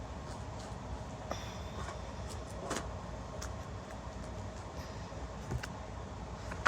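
A few soft clicks and rustles of trading cards being handled, over a steady low rumble.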